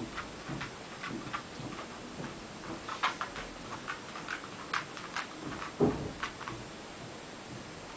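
A dog's claws clicking irregularly on a hard floor as it walks about, with one heavier thump about six seconds in.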